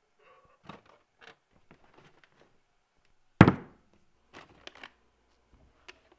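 Kitchen cupboard rummaging: light knocks and rattles of jars, tins and boxes being shifted on a cupboard shelf, then one loud thunk about three and a half seconds in as a peanut butter jar is set down on the countertop, followed by a few more light clicks and knocks.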